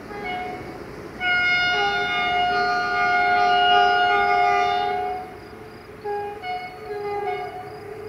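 Diesel locomotive air horn sounding one long chord of several tones for about four seconds, starting a little after a second in and dying away near five seconds. Background music with short stepping notes plays before and after it.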